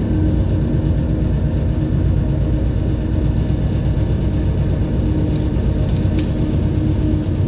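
Heavy engine running steadily with a deep rumble and a held hum. Two sharp clicks come near the end.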